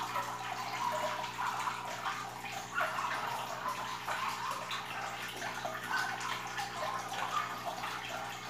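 Aquarium water trickling and splashing steadily, with a steady low hum underneath.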